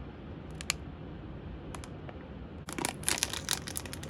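Packaging crinkling as a toy pack is handled and opened: a few small clicks at first, then dense, crisp crinkling from about two-thirds of the way in.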